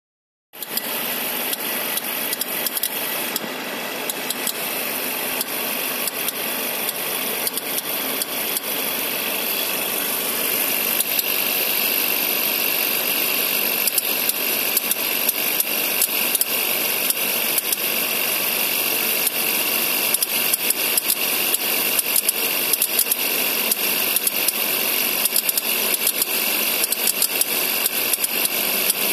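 Suzuki SX4's 1.5-litre M15A four-cylinder engine running, with a quick, uneven clicking from the air-conditioning compressor over it. The clicking gets louder and more frequent about halfway through.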